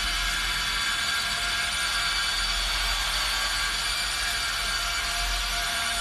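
Electric drive motors and gearboxes of a remote-control toy excavator whining steadily as it drives and turns on its tracks.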